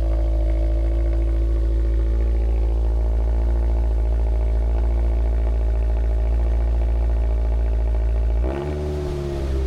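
2025 Toyota GR86's 2.4-litre flat-four idling through a freshly installed Cobb titanium cat-back exhaust on its first start-up, a steady low note. Near the end the note briefly shifts and dips in level.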